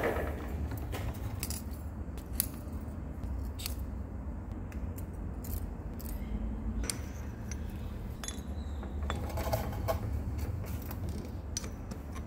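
Small steel tools clinking and tapping against a metal lathe and its tool post, a dozen or so sharp clicks spread over a low steady hum. A cut stops right at the start.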